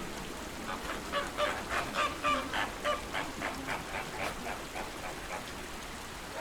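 Flamingos honking in a quick run of goose-like calls, about four a second, loudest about two seconds in and then fading away. A steady wash of lake water runs underneath.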